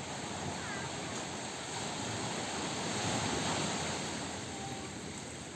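Ocean surf: a steady wash of breaking waves that swells about halfway through and eases off toward the end.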